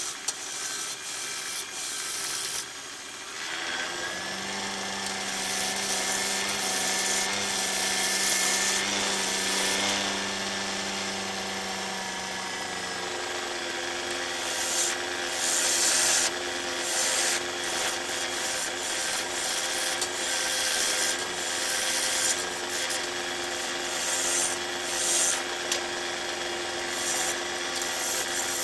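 A turning tool cutting into a large jacaranda bowl blank spinning on a wood lathe. A rough scraping of wood comes and goes in repeated bursts as the tool bites, over the lathe's steady hum.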